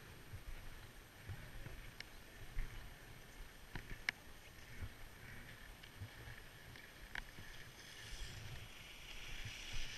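Faint wind rumble on the microphone with a snowboard sliding slowly over packed snow, broken by a few sharp clicks.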